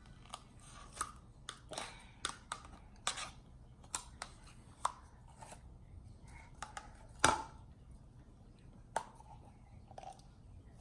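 Scattered light clicks and taps of plastic Play-Doh tools and slime tubs being handled, with one louder knock about seven seconds in.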